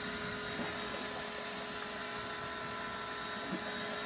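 LG direct-drive washing machine motor's outer magnet rotor spinning freely on a newly fitted 22 mm shielded ball bearing after a hand spin, coasting with a steady whir; it is a free-spin test of the bearing.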